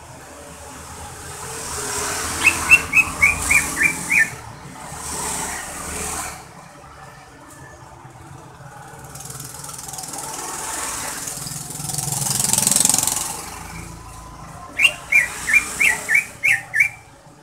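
Caged cucak ijo (leafbird) calling: two quick runs of about seven short notes, each sliding down in pitch, one a couple of seconds in and one near the end. Between them, a rushing noise from passing traffic swells up and fades twice.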